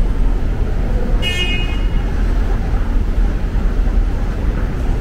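Steady low traffic-like rumble, with one short, high horn toot lasting about half a second just over a second in.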